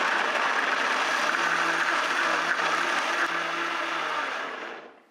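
High-powered countertop blender running steadily at speed, a first round of blending almonds, soft white bread, water and garlic, then winding down and stopping near the end as it is switched off.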